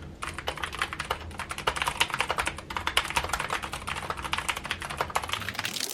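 Fast, continuous typing on a Keychron K8 mechanical keyboard fitted with optical brown switches: a dense, rapid clatter of keystrokes that starts a fraction of a second in.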